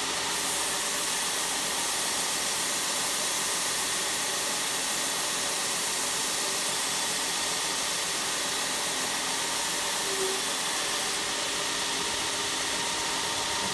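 Long horizontal belt sander running steadily with an even hiss, while a lump of old dried silicone is pressed against the moving abrasive belt to clean clogged dust out of it.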